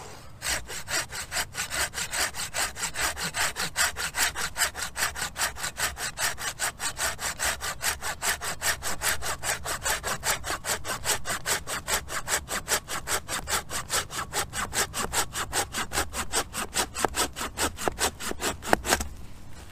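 Hand pruning saw cutting through a log in a steady rhythm of quick rasping strokes, which stop suddenly near the end.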